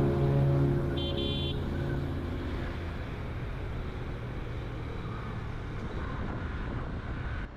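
Road traffic noise as background music fades out, with a brief high horn toot about a second in.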